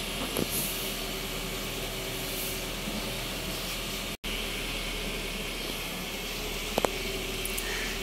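Honda City sedan's engine running steadily as the car creeps along, heard as an even hiss with a faint hum. The sound cuts out for an instant about four seconds in, and two short clicks come near the end.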